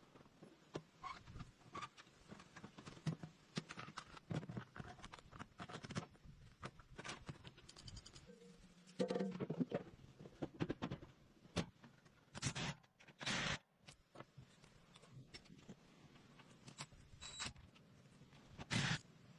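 Hand work on machine parts with tools: a string of irregular metal clicks, clinks, knocks and scrapes, with a few louder knocks about halfway through and again near the end.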